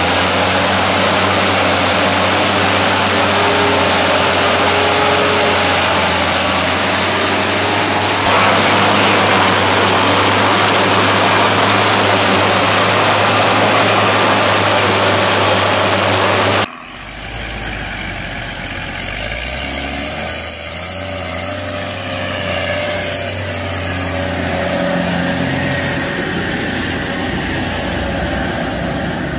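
Steady road and engine noise inside a moving car, picked up by a dashcam, with a low hum underneath. About 17 seconds in it cuts abruptly to a quieter recording of an engine running, whose pitch wavers.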